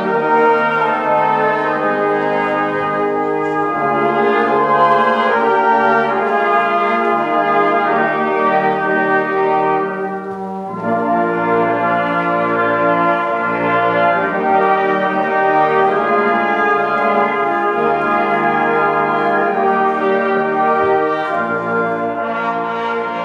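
Brass band playing music in held chords, with a brief break about ten seconds in; the sound tapers off near the end.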